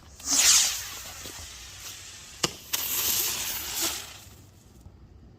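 Consumer firework going off: a loud hissing rush that fades over about a second, a single sharp crack about two and a half seconds in, then another hissing spray lasting over a second before it dies away.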